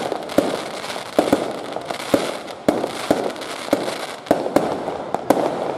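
Fireworks going off: about a dozen sharp bangs at irregular spacing, roughly two a second, over a continuous hiss.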